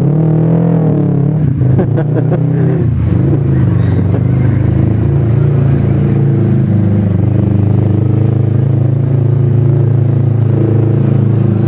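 Kawasaki Ninja 250 carburetted parallel-twin engine pulling the bike away and accelerating, its pitch rising and falling over the first few seconds, then running at a steady cruise.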